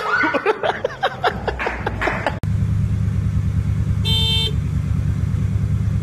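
A high-pitched voice in short broken bursts. After an abrupt cut, a car's engine hum is heard from inside the cabin, with one short car horn toot about four seconds in.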